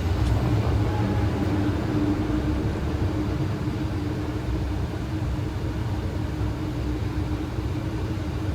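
Boeing 737 flight deck noise as the landing gear comes down: the low rumble swells right at the start and then settles into a steady rumble of the gear in the airflow, with a steady hum under it.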